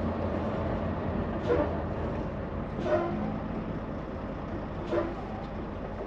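Semi truck cab noise while creeping in traffic: a steady low engine and road hum heard inside the cab, with three brief clicks spread through it.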